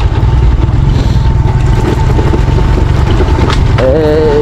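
Motorcycle engine running continuously under way on a rough dirt trail, with a faint steady whine above the low engine sound. A man's voice starts near the end.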